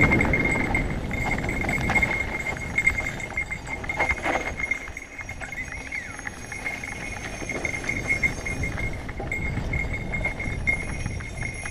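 Mountain bike riding fast down a dirt singletrack: wind rushing over the helmet-mounted camera, tyres on dirt and the bike rattling over bumps, with a steady high buzz. The rush is loudest at the start and eases off.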